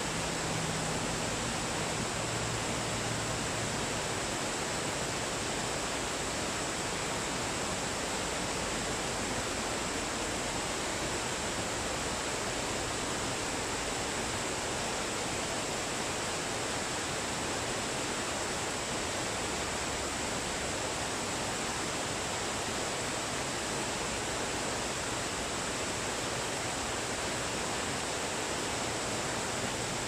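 Waterfall running: a steady, even rush of falling water that does not change.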